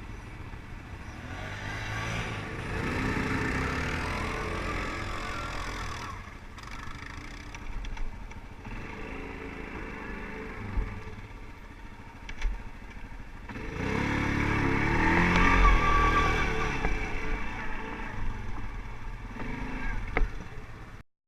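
ATV engine running and revving up twice, rising in pitch each time and dropping back to a lower running note in between, with a couple of sharp knocks in the middle. The sound cuts off abruptly near the end.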